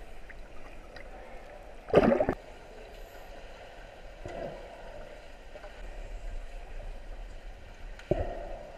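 Swimming-pool water heard through an underwater camera: muffled sloshing and gurgling, with one loud gurgle about two seconds in, a softer one around four seconds, and another near the end.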